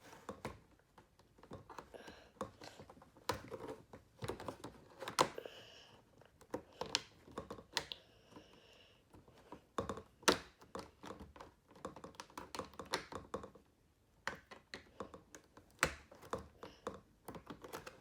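Hard plastic Beystadium parts being handled and pushed together, making a string of irregular clicks and knocks. The loudest knock comes about ten seconds in.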